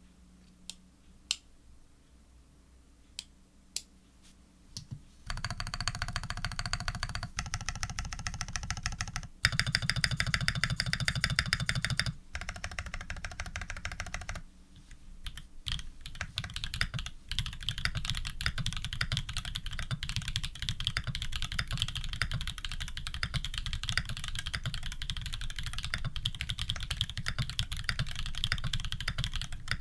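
Leaf65 custom mechanical keyboard with tactile Holy Panda switches in a brass plate and PBT keycaps being typed on. A few single keystrokes come first, then fast runs of keystrokes with brief pauses, settling into steady rapid typing about halfway through.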